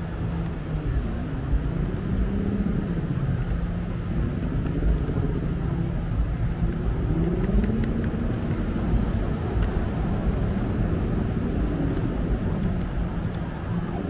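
Street traffic: engines of passing motor vehicles, their pitch rising and falling as they go by, over a steady low hum.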